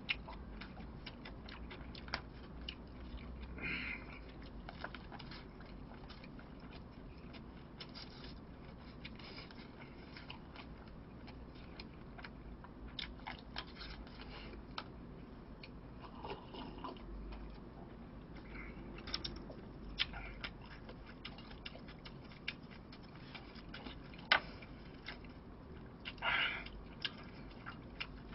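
A person eating: quiet chewing with scattered light clicks and taps of utensils against a plastic takeout tray.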